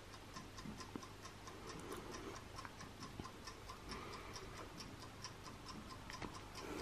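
Oven's built-in mechanical timer ticking faintly and evenly, several ticks a second, as it runs down from about 20 minutes.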